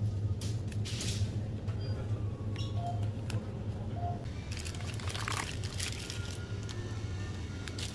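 Background music, with short crinkly rustles of plastic packaging and light clicks as products are taken from a shelf and handled over a shopping basket.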